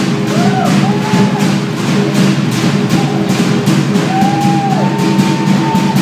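Fast Polynesian drumming of the kind played for a fire knife dance, about four strokes a second over a steady low drone, with long sliding sung or shouted calls on top.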